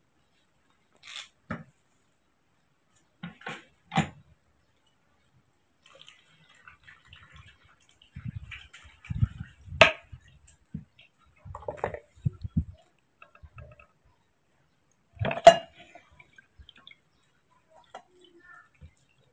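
Oranges being cut with a knife and squeezed in a lever-press citrus juicer. There are scattered knocks and clacks from the metal press and its lever, the loudest about ten seconds in and again about five seconds later, with squishing and juice dripping into a plastic tub.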